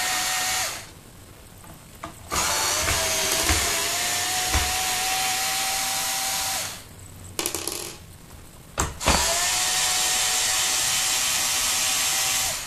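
Cordless Ryobi drill/driver unscrewing the bottom-plate screws of a Turbocat power brush. There are three runs of a steady motor whine, each rising slightly in pitch as it spins up. The first stops about half a second in, the second runs for about four seconds from two seconds in, and the third starts about nine seconds in. A few small clicks of bit and screw handling come in the pauses.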